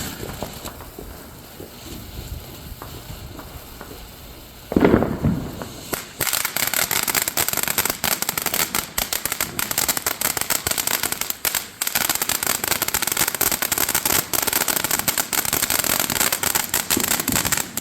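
Fireworks: one loud bang about five seconds in, then a dense, continuous crackling of rapid pops for the rest.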